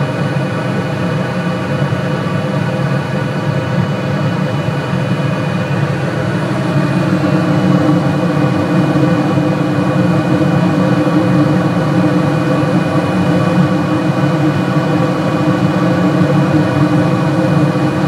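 Trane commercial rooftop HVAC unit running in heating mode: a steady mechanical drone of its fans and firing gas burner, with several steady hum tones, growing louder about seven seconds in.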